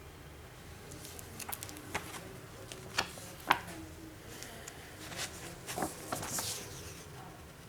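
Handling noise from a motherboard and its packaging being moved about: a series of light clicks and taps, the sharpest about three and a half seconds in, with a short rustle about six seconds in.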